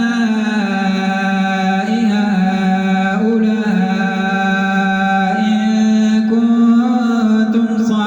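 A man chanting Quran recitation in the Warsh reading, in a slow melodic style, drawing out long held notes that step to a new pitch every second or two.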